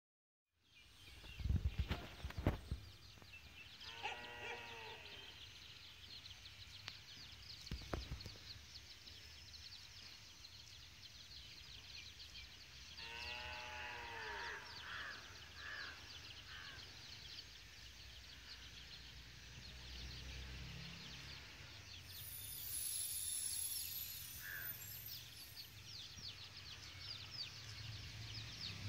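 Two brief animal calls, each a quick run of wavering cries, about four and thirteen seconds in, over faint outdoor ambience with scattered high chirps. A few low knocks on the microphone come in the first seconds.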